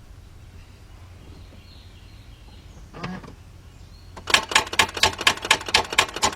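A single short click about three seconds in, then rapid, even clicking, about six clicks a second, from the starting circuit of a 2004 Mercedes-Benz C320 3.2 as the key is held to start: the engine does not crank and the battery voltage sags to about 10 volts.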